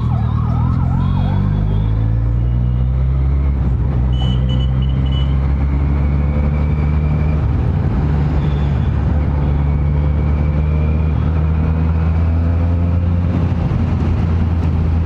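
Benelli TNT300's parallel-twin engine running steadily at highway cruise. In the first second and a half there is also a warbling, siren-like tone that rises and falls.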